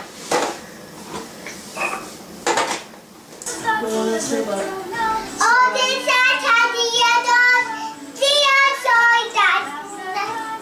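Hard plastic toys clicking and clattering, then, a few seconds in, a toddler singing in a high-pitched voice with held notes.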